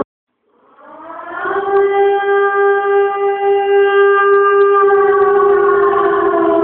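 Air-raid siren: after a moment's silence it winds up, holds a steady wail, then begins to wind down near the end.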